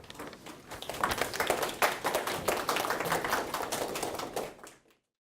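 A small audience applauding, the clapping filling in about a second in and cutting off shortly before the end.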